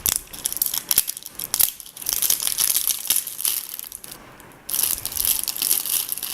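Packaging being broken open and pulled off by hand: irregular crinkling, crackling and tearing with sharp snaps, easing briefly about four seconds in.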